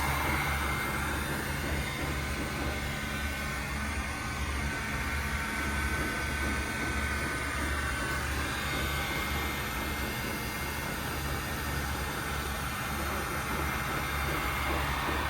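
Steady low mechanical hum with an even hiss over it, unchanging throughout: constant background machinery noise.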